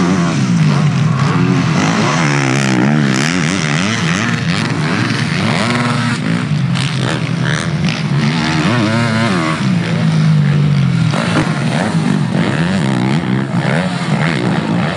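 Yamaha YZ250F 250cc four-stroke motocross bikes being revved hard on and off the throttle as they jump and corner. The engine pitch climbs and drops again and again, and more than one bike is heard at once.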